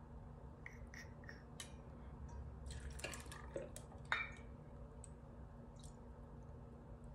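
Vodka pouring in a thin stream from a glass bottle into a stainless steel jigger, faint, with a few light clicks and one sharper tick about four seconds in.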